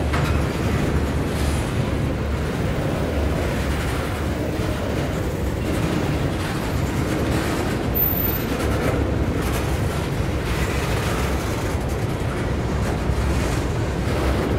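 Covered hopper cars of a long freight train rolling slowly past, a steady rumble of steel wheels on rail.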